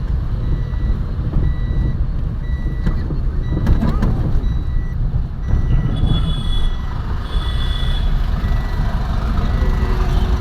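Car on the move, heard from inside the cab: a steady engine and road rumble. Over it, an electronic beep repeats evenly about one and a half times a second. From about six seconds in, a higher-pitched beep sounds a few times.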